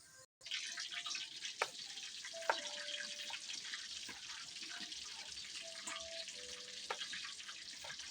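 Pork hock deep-frying for crispy pata: hot oil sizzling steadily with scattered sharp crackles and pops, starting just after a brief cut-out.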